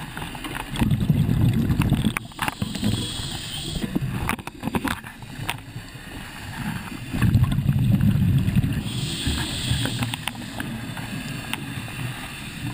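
Diver breathing underwater through a regulator, twice: a low rush of exhaled bubbles, then the hiss of the next inhaled breath.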